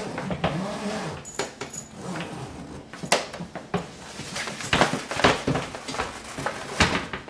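A hardshell suitcase being unzipped, followed by several sharp knocks and clatters as its hard plastic lid is lifted and swung open.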